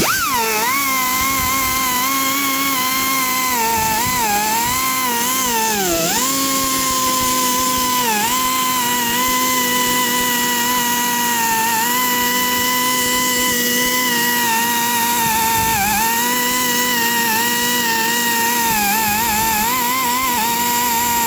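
Handheld electric grinder running at speed with a steady high whine, cleaning the metal of a cracked stainless steel exhaust pipe. Its pitch sags briefly several times as it is pressed into the work.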